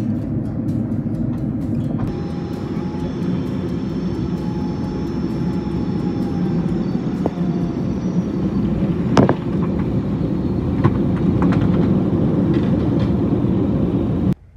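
Airliner cabin noise heard at a window seat during arrival: a steady rumble of engines and rushing air, with a faint high whine. A single sharp knock comes about nine seconds in.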